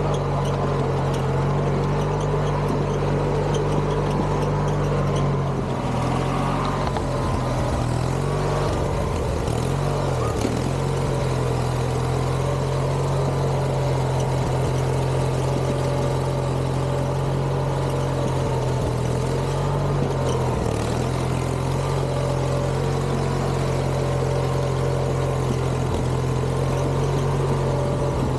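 Craftsman GT6000 garden tractor's engine running steadily at a high, even speed, its pitch dipping briefly a few times, around a third of the way in and again past the middle.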